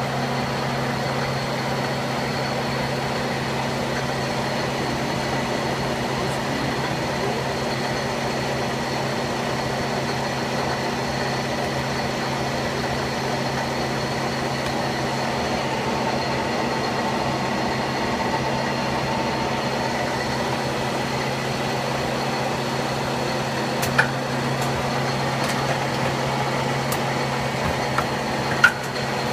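Köpfer 143 CNC gear hobbing machine running: a steady mechanical hum with a fixed high whine, and two sharp clicks near the end.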